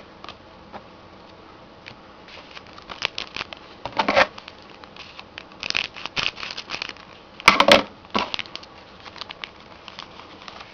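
Wrapper of a hockey card pack crinkling and tearing as it is opened, along with cards being handled, in irregular bursts of rustling; the loudest tear comes about three-quarters of the way through.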